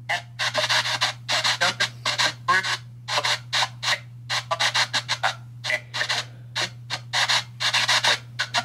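Spirit box app on a smartphone sweeping through FM radio stations: rapid choppy bursts of static and snatches of broadcast audio, several a second, over a steady low hum.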